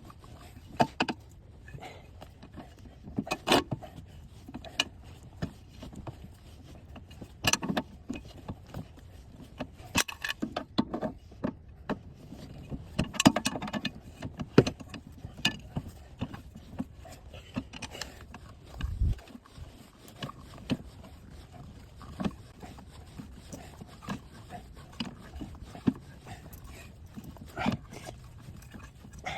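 Irregular metallic clinks, clicks and knocks of tools and wheel parts being handled during a car wheel change, with a dull low thump about nineteen seconds in.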